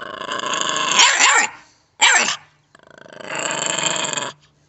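Dog play-growling in two long rasping growls, with a short, sharp bark between them about two seconds in.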